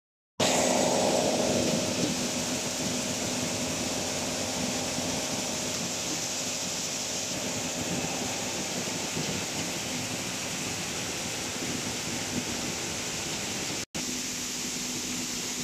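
Plastic color sorting machine for PET flakes running: a steady machine hiss with a faint low hum under it, slightly louder in the first couple of seconds. There is a brief dropout near the end.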